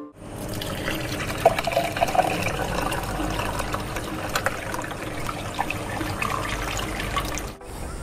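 Water trickling and splashing down the tiers of a small homemade tabletop waterfall fountain made from cut plastic bottles: a steady trickle full of small drips and splashes that stops abruptly near the end.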